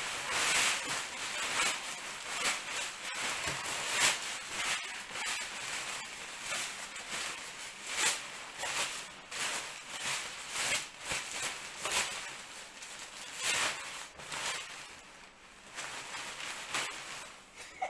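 Large sewn kite of synthetic fabric rustling and swishing in repeated irregular strokes as it is pulled through by hand and turned right side out.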